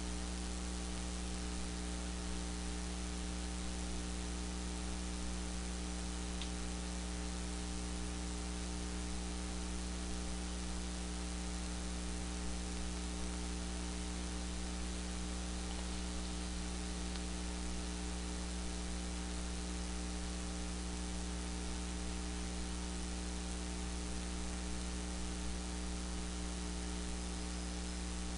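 Steady electrical hum with its overtones under a constant hiss, with no other sound.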